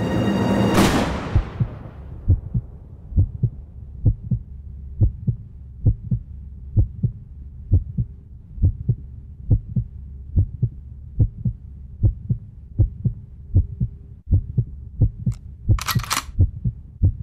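Heartbeat sound effect: pairs of low thumps a little under once a second over a faint steady drone, after a music swell fades in the opening second or two. A short hiss comes near the end.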